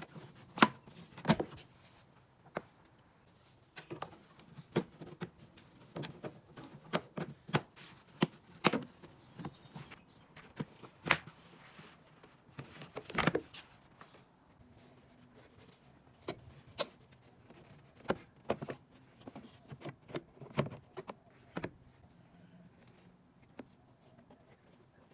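Irregular sharp clicks, knocks and brief rustling of plastic parts being handled by hand, as when unclipping car trim panels and a filter housing.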